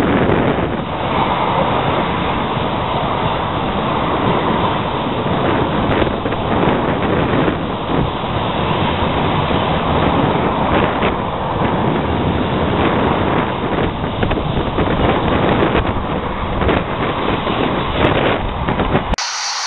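Train of empty car-carrier freight wagons rolling past close below, a loud steady rumble with irregular knocks, mixed with wind buffeting the microphone. About a second before the end it gives way abruptly to a quieter hiss.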